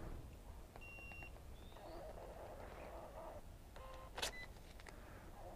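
Handheld card payment terminal beeping once as a contactless debit payment goes through, then its receipt printer whirring as the paper slip feeds out. A few more short beeps and a sharp snap come about four seconds in.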